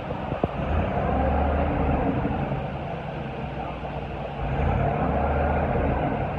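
Bucket truck engine running steadily with a low rumble, and a single click about half a second in.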